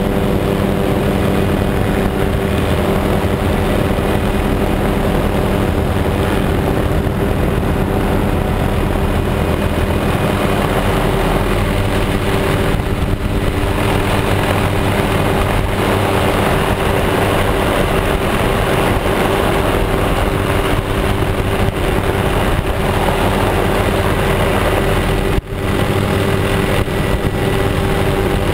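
Helicopter in flight: a steady engine and rotor drone with a constant rushing noise on the microphone. It cuts out for an instant near the end.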